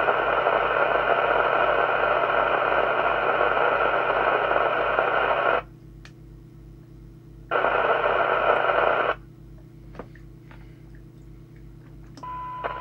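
Eurosonic Euro 2 CB radio receiver putting out loud open-squelch hiss that cuts off sharply about five seconds in as the squelch preset is turned to threshold, comes back for a second or two, then mutes again. Near the end a steady test tone from the signal generator comes through the receiver as the squelch opens on the signal.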